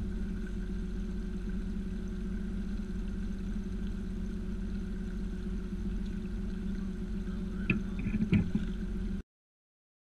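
A boat's motor runs with a steady drone, with a few sharp knocks about eight seconds in. The sound cuts off abruptly about nine seconds in.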